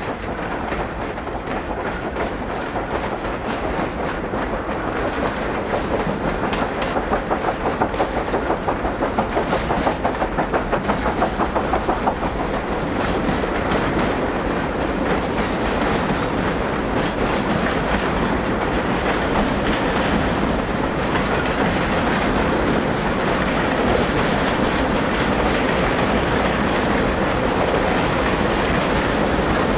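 JS class steam locomotive working a long train of loaded wagons, with a regular exhaust beat that is clearest in the first half, over the steady rumble and clatter of the wagons rolling on the track.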